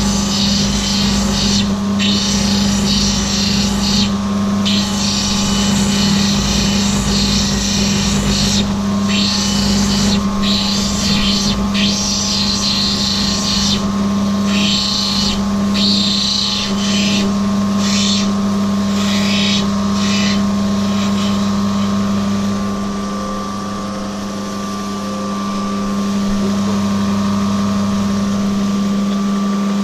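Lapidary grinding machine running with a steady motor hum while a piece of opal is ground on its water-fed wheels. The hiss of stone on wheel stops and starts as the piece is pressed on and lifted off, and eases off for a few seconds about two-thirds of the way through.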